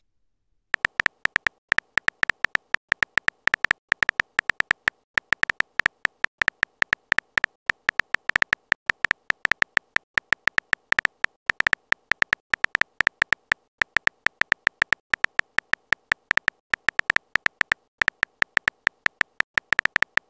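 Keyboard typing sound effect of a texting-story app: a rapid run of short, sharp, slightly pitched clicks, one per typed letter, about six a second, pausing briefly every few seconds.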